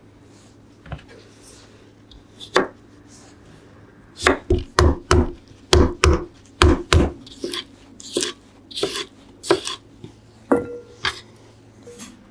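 Wooden pestle smashing a cucumber on a wooden cutting board: a couple of single knocks, then a run of heavy thuds about three a second, followed by lighter knocks and crunches as the cucumber breaks apart.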